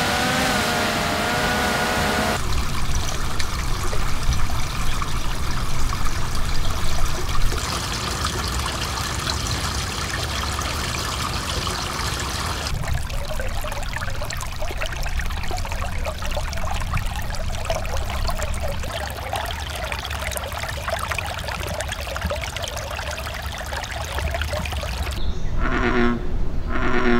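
A hovering quadcopter drone's steady whine for about the first two seconds, then running water, with a small stream trickling over rocks. Near the end come several short duck quacks.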